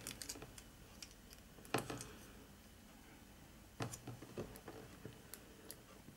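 Faint clicks and taps of a small precision screwdriver working a tiny screw into model-kit parts held in the hands. Two sharper clicks come about two and four seconds in.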